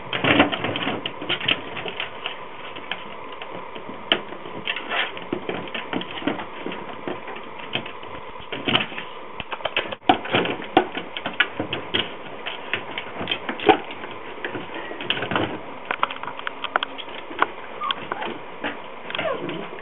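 Yorkshire terrier puppy scrabbling inside a box, its claws scratching and tapping irregularly against the sides as it tries to get out.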